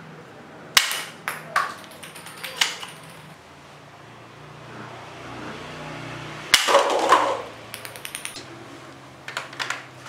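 Sharp plastic clicks and knocks from toy guns being handled, a few scattered strokes about a second in, then a louder clattering burst with a short ring about six and a half seconds in, followed by quick runs of light clicks.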